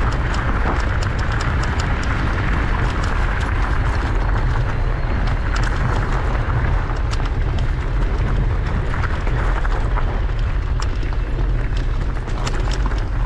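Wind buffeting the microphone of a moving bike, heavy and steady, over knobby bicycle tyres rolling on a gravel track, with many small sharp ticks of stones under the wheels.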